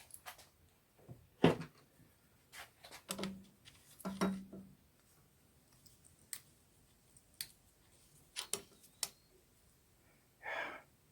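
Scattered light clicks and knocks of tools and small metal valve parts being handled while a backhoe hydraulic control valve is taken apart, with a short breath-like hiss near the end.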